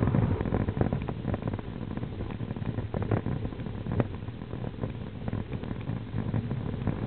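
Wind buffeting the microphone of a camera moving along the road behind a cyclist: a steady low rumble with scattered short knocks and clicks.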